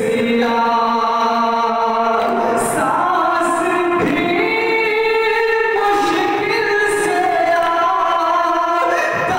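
Men chanting a noha, a Shia lament, with no instruments: a lead male voice with others singing along on long held notes that shift in pitch every two seconds or so.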